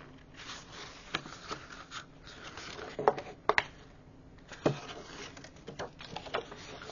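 Paper and card stock being handled and set down on a plastic paper trimmer: light rustling with scattered sharp little taps, about seven in all.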